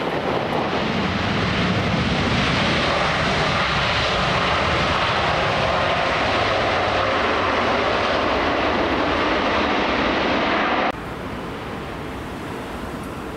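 Airliner's jet engines on landing approach, a loud steady rush of engine noise. It cuts off abruptly about eleven seconds in, leaving a quieter background rumble.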